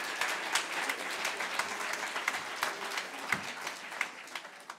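Audience applauding, the clapping thinning and fading away near the end.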